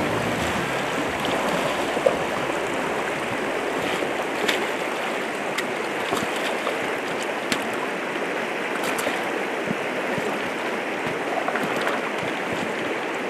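Shallow river current rushing over rocks, a steady water noise, with a few faint light clicks now and then.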